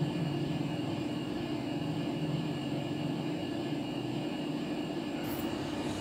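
Steady low hum of background room noise with faint steady high tones, and no other event.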